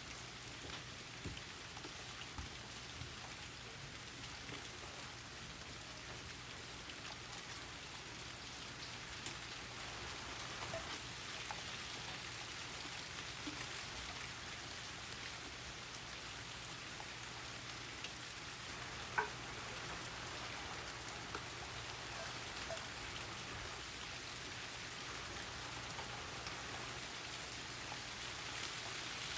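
Steady rain falling, with scattered individual drops ticking through it and one sharper drop about 19 seconds in.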